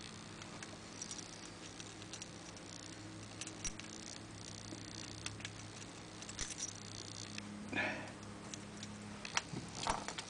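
Faint scattered clicks and small metallic taps of picking tools being fitted into and worked on a Squire 4-lever padlock, with a brief rustle about three quarters of the way through, over a steady low hum.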